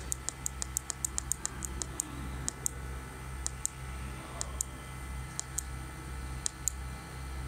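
Key presses on the keypad of a Videojet inkjet coding printer: a quick run of about a dozen sharp clicks in the first two seconds, then clicks in pairs roughly once a second, as the menu is scrolled down. A steady low hum runs underneath.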